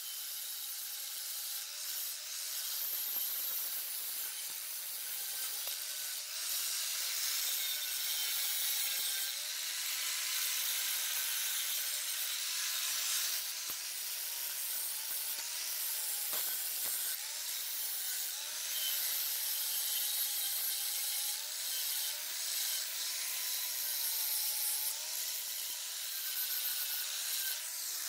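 Electric angle grinder with a grinding wheel grinding down the rough plasma-cut edge of a hole in a steel car frame bracket. It gives a steady grinding hiss, with a motor whine that sags and recovers as the wheel is pressed into the metal and eased off. It stops right at the end.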